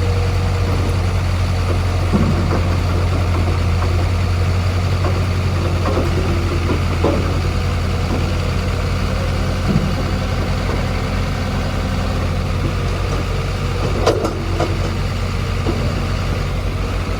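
Heavy diesel engine idling steadily, with a few light knocks and clanks over it.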